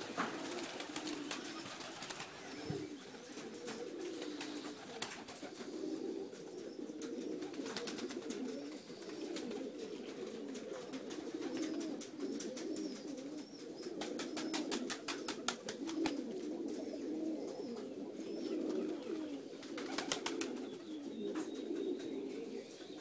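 A flock of domestic pigeons cooing continuously, many low coos overlapping. A few short bursts of rapid wing clatter come as birds take off, one in the middle and one near the end.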